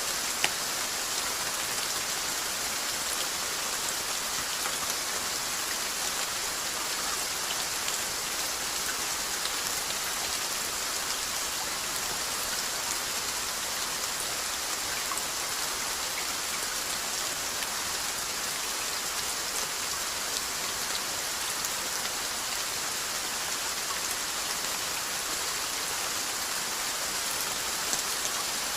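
Steady rainfall: an even hiss of rain with many small drop patters, one sharper drop pat just under a second in.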